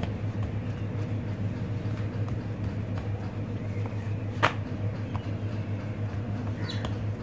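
Steady low hum in the room under the soft sounds of hands working dough. About four seconds in, one sharp slap as the stuffed paratha is flipped and dropped back onto the stone counter.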